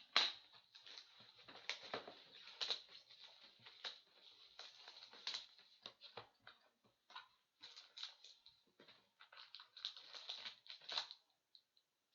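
Crinkling, crackling and tearing of packaging and card handling as a sealed box of hockey trading cards is opened: irregular crackles and snaps, some sharper than others, dying away about a second before the end.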